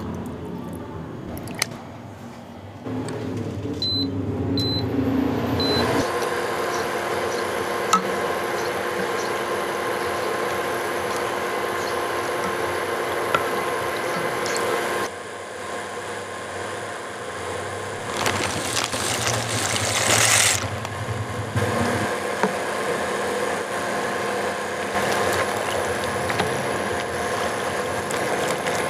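A pot of water heats and boils on an electric hob, bubbling over a steady hum. There are three short high beeps from the hob's controls a few seconds in, and a louder stretch of rushing, bubbling water about two-thirds of the way through.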